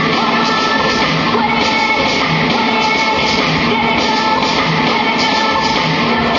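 Loud recorded music with singing and a steady beat.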